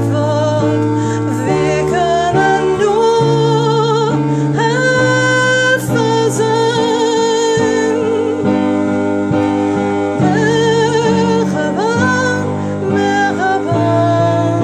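A woman singing a slow melody with vibrato on long held notes, over a steady instrumental accompaniment.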